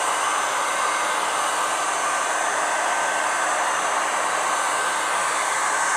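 Handheld hair dryer running steadily, blowing air onto a leather boot: an even rush of air with a faint whine.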